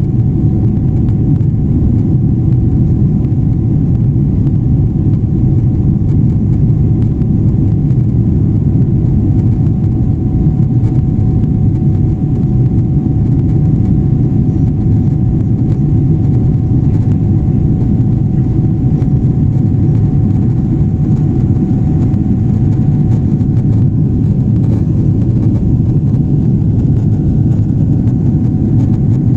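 Steady, loud rumble of a Boeing 777's jet engines and rushing air, heard from inside the aircraft during takeoff or climb, with a faint steady tone above it.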